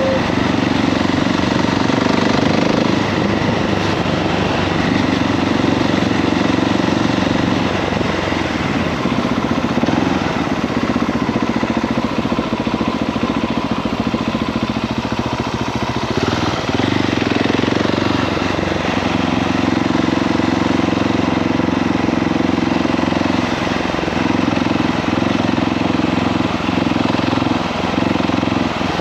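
KTM 690 SMC R's single-cylinder engine running, heard onboard, its low band of engine tone strengthening and easing in stretches of a few seconds.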